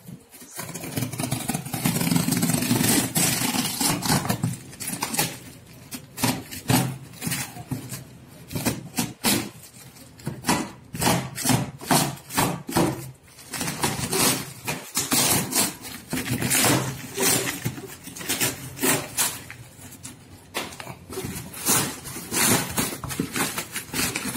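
A parcel being torn open by hand: the crinkly white wrapping sheet ripping and rustling and the cardboard box beneath being pulled open, in irregular bursts of tearing and crackling.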